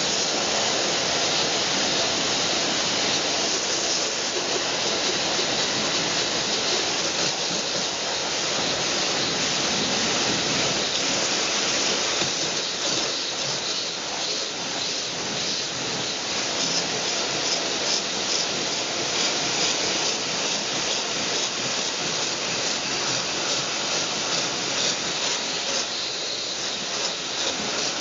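High-pressure water spraying from a pressure washer's fan-tip nozzle: a steady, loud hiss of spray that wavers a little from about the middle on.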